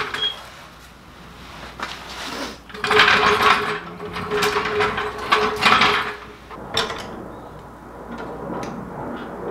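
Steel floor jack being rolled across the concrete garage floor and positioned under the car, its wheels giving a rolling rumble for a few seconds, followed by scattered metal clicks and knocks as the jack and its handle are set in place.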